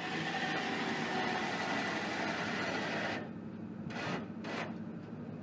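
Forklift's hydraulic lift pump running steadily for about three seconds as it raises a utility vehicle, then stopping abruptly, followed by two short bursts about a second later.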